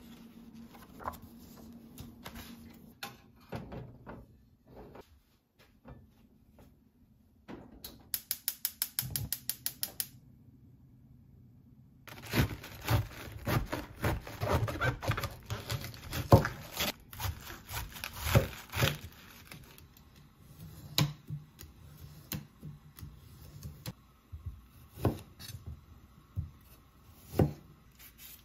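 Kitchen knife cutting a whole cabbage on a wooden cutting board: a dense run of crunching cuts and knocks of the blade on the board in the middle. Before it come scattered clicks and a quick, even run of taps, and after it scattered knocks and taps.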